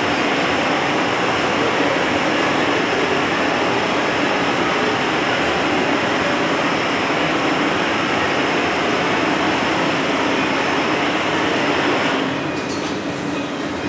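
Steady roaring hiss of gas burners: the glassblowing glory-hole furnaces and a bench hand torch, firing continuously. It drops down a notch about twelve seconds in.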